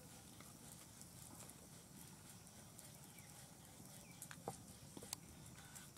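Near silence: faint background hiss with two soft clicks about half a second apart, a little after four seconds in.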